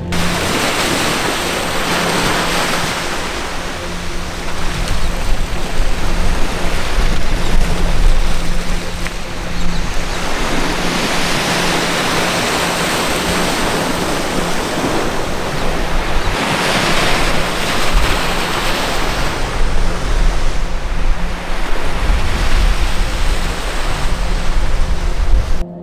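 Surf washing onto a sandy beach, its hiss swelling and easing as waves break, with wind buffeting the microphone.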